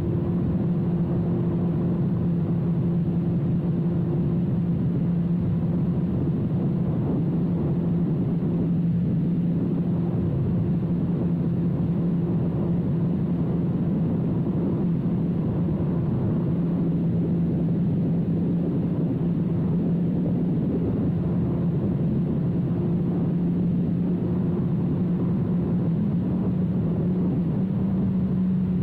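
2006 Suzuki GSX-R1000's inline-four engine through a full carbon/titanium Yoshimura exhaust, running at a steady speed with an even, constant note. The note dips slightly about nine seconds in and again around twenty-one seconds, then rises a little near the end.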